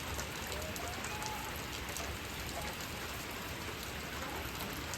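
Steady rain-like noise with faint scattered ticks, and a faint distant voice about a second in.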